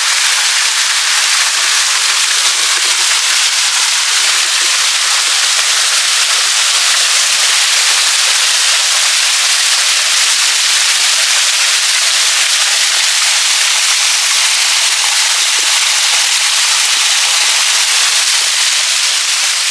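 Small waterfall splashing close up: a loud, steady, even hiss of falling water, with no pitch to it and little low rumble.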